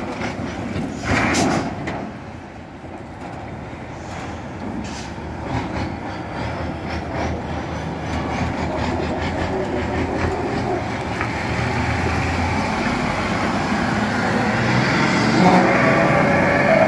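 Nissan Diesel truck's turbocharged PF6 six-cylinder diesel engine running with a steady low rumble, growing louder near the end. A brief clatter about a second in.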